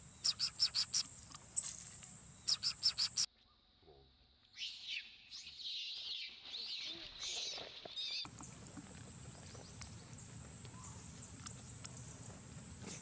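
A steady, high insect drone, with two quick runs of sharp, high chirps in the first three seconds. The sound cuts off suddenly. After a short gap come a few seconds of irregular, high warbling calls, then the insect drone comes back abruptly and holds steady.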